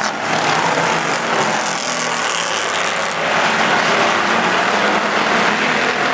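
Several stock cars racing around a short oval track, their engines running together in a loud, steady drone.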